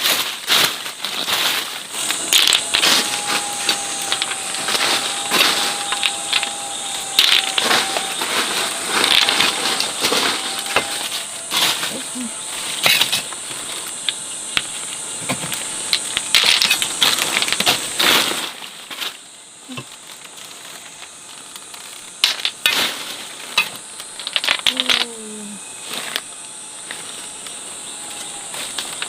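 Repeated sharp clicks and clatter of hard objects knocking together, over a steady high hiss. The clatter is busy for most of the first two-thirds, then thins to a few scattered knocks.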